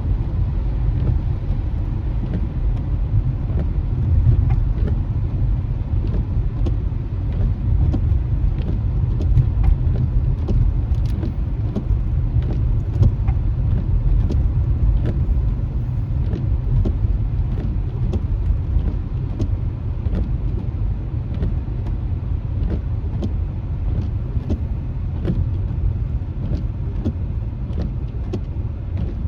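Steady low rumble of a car's tyres and engine heard from inside the cabin while driving on a wet road, with scattered light ticks of rain hitting the windshield.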